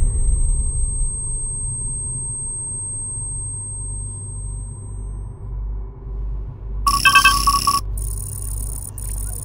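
Synthesized film sound design: a low, dark drone that begins to pulse slowly partway through, then a short electronic chime of several beeping tones about seven seconds in, followed by a high, stuttering computer-like chatter. The chime marks a computer process reporting completion.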